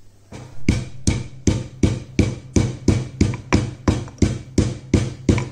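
Stone pestle pounding lightly fried whole spices (cinnamon, cloves, cardamom, black pepper and ginger) in a stone mortar to grind them into powder, with rhythmic knocks about three a second. Background music plays under it.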